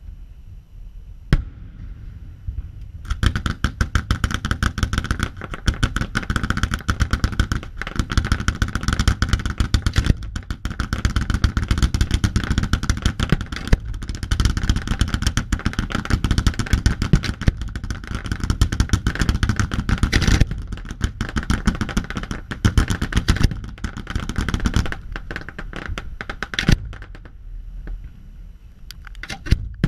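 Fireworks going off: a single bang about a second in, then from about three seconds a dense, rapid run of cracks and pops lasting some twenty seconds, thinning to a few separate bangs near the end.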